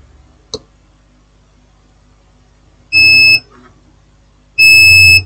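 Multimeter continuity beeper sounding twice, two steady high beeps about half a second each, as the probe touches grounded points on the phone motherboard while checking the main power rail for a short to ground. A faint click of the probe comes about half a second in.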